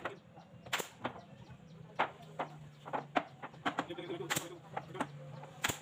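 Irregular sharp knocks and clicks, about nine or ten, over a steady low hum, with brief bits of voices in between.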